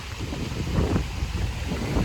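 Wind on the microphone: a steady low rumble with faint hiss above it.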